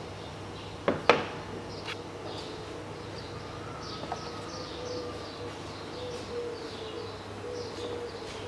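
Two sharp knocks about a second in, from handling the oil filler cap and a plastic funnel on the engine's top, followed by a fainter knock or two. Birds chirp steadily in the background, a quick run of short falling chirps.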